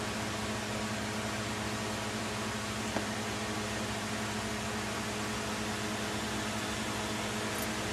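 Steady machine hum with several fixed low tones over an even hiss, with one faint click about three seconds in.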